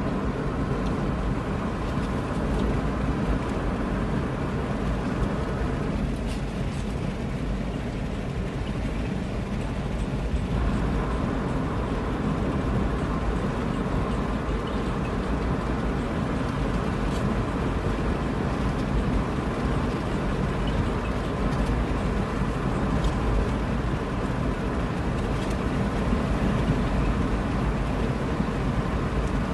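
Steady road and engine noise heard inside a moving car's cabin: an even, deep rumble that stays level throughout.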